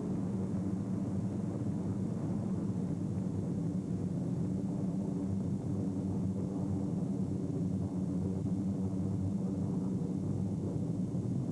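Piston-engined propeller aircraft droning steadily in flight, a low, even engine hum with no change in pitch.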